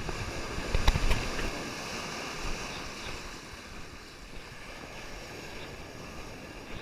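Steady wash of ocean surf with wind noise on the microphone, and a couple of short knocks about a second in.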